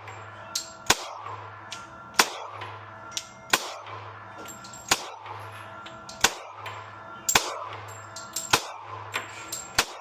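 Background music with a steady, even beat, over which single sharp gunshot cracks go off at uneven intervals, about a dozen in all.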